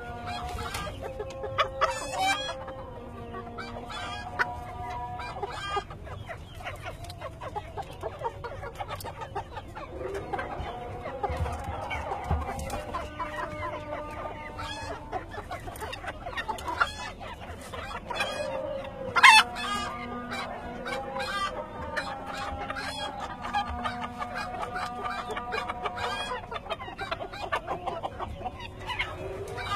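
Fancy bantam chickens clucking and calling, with rooster crowing among them and one loud sharp call about two-thirds of the way in.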